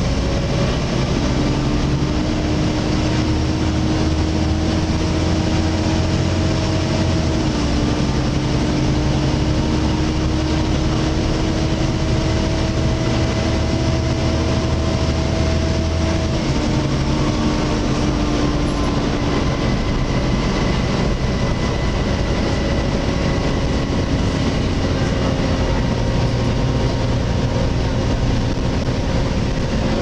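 Volvo B7TL double-decker bus under way, heard inside from the upper deck: the diesel engine running with the loud whine of its engine cooling fan, the 'hoover', as a steady hum over the rumble. The engine note changes twice and the hum shifts slightly in pitch.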